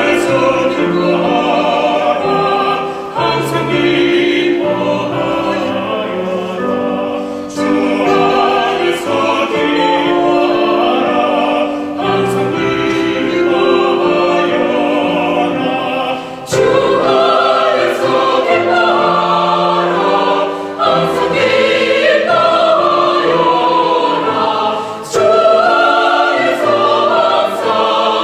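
Mixed choir of women's and men's voices singing in harmony, in phrases a few seconds long with brief breaks between them.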